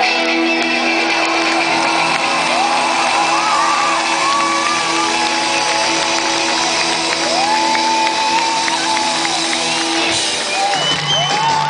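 Live rock band holding a sustained chord while the crowd shouts and whoops over it; the low notes change about ten seconds in.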